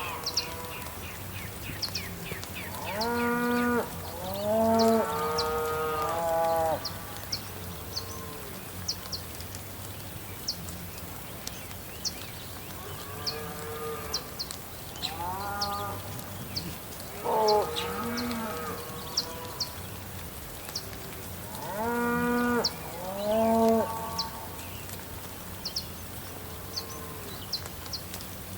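Cows mooing, about seven long calls in groups of two or three, each rising in pitch and then holding. Under them runs an even rain hiss, with short high bird chirps scattered throughout.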